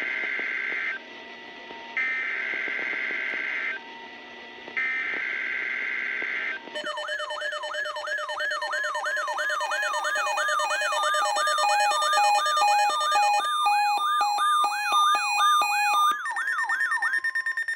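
Emergency Alert System SAME header: three buzzy digital data bursts of about two seconds each, with short pauses between them, marking the start of a flood watch alert. An electronic alert tone follows, a fast repeating sweeping warble with beeps over it, sounding for about eleven seconds.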